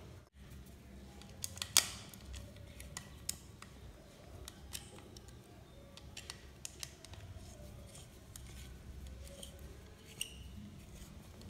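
Small sharp clicks and taps of a plastic socket outlet and its wire being handled while the ground wire is fitted, the loudest cluster of clicks coming just under two seconds in.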